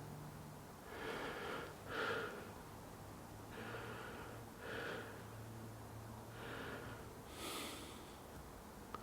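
A person breathing audibly near the microphone, soft breaths about every second, over a faint steady low hum.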